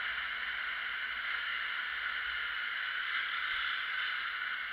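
Steady rushing wind and road noise on the microphone of a motorcycle-mounted camera while riding at speed, with no clear engine note standing out.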